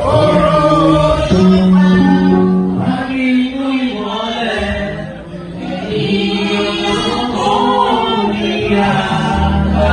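Church choir singing a gospel hymn, with long held notes.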